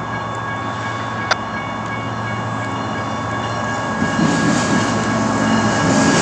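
Lead GE ES44C4 and ES44DC diesel-electric locomotives approaching on a freight consist, with a steady whine over the diesel engines' rumble. The rumble grows louder from about two-thirds of the way in as the units draw near. A single sharp click is heard about a second in.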